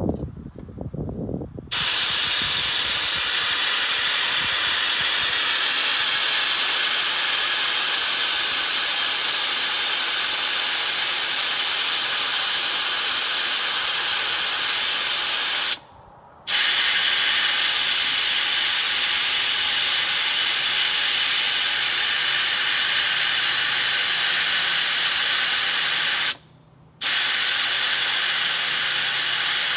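Air hissing steadily out of an off-road tire's valve as it is let down toward 15 psi. The hiss starts abruptly about two seconds in and stops briefly twice along the way.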